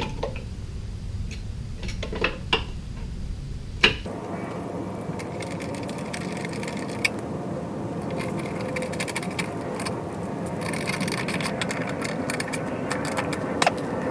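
Hand tools working on a lawn mower carburetor as it is bolted back on: a few separate sharp metal clicks, then from about four seconds in a steady run of small clicks and scraping.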